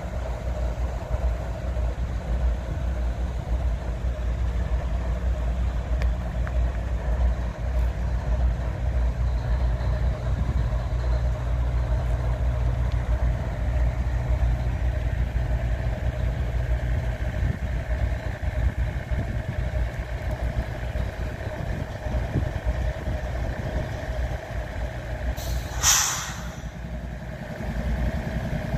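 Diesel locomotives of a stopped freight train idling with a steady low rumble. Near the end comes one short, loud hiss of released air from the train's air brake system, after which the engine note eases and changes.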